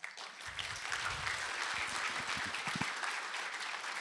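Audience applauding, breaking out all at once and keeping up as a dense patter of many hands clapping.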